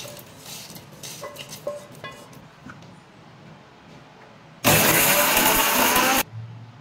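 Dry-roasted whole spices rattling and clicking into a stainless steel mixer-grinder jar. Then, near the end, the grinder's motor runs loudly for about a second and a half, grinding the spices into masala powder, and cuts off abruptly.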